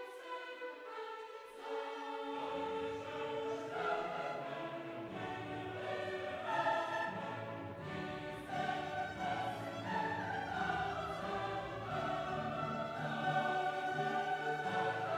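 Background music in a classical style, with choir-like voices over an orchestra; a lower bass part comes in about two seconds in.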